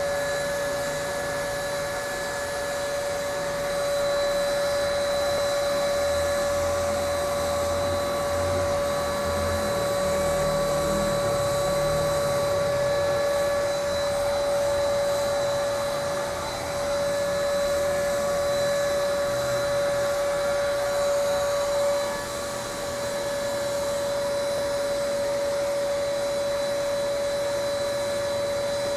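Paint spray gun running steadily as a motorcycle frame is sprayed: a constant motor whine under a hiss of air, with short dips in level about halfway through.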